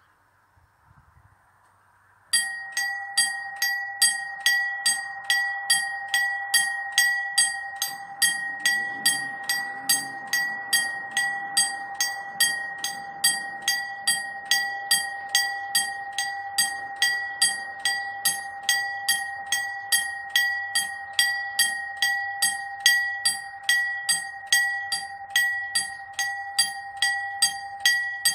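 Railway level-crossing warning bell starting up about two seconds in and ringing on in an even 'ding-ding' of about two strikes a second, the signal that a train is approaching and the barriers are about to come down.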